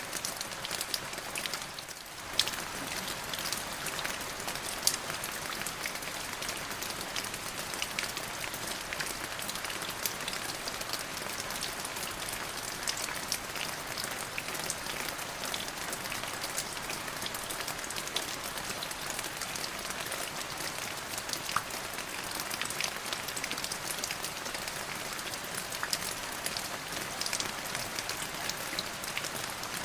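Steady rain: an even hiss of rainfall with many separate drop hits heard as sharp ticks, easing briefly about two seconds in.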